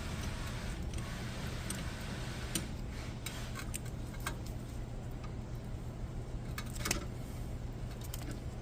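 Scattered metallic clicks and ticks from working a brake caliper piston depressor tool against an old pad, pushing the rear caliper piston back, which slides back smoothly. A steady low hum runs underneath.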